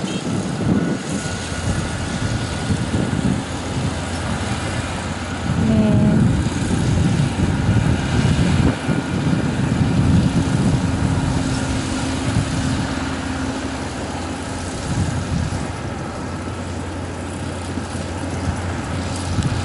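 Kubota ER447 combine harvester running steadily under load, a dense mechanical rumble over a low steady hum. About six seconds in, a brief pitched tone sounds over it.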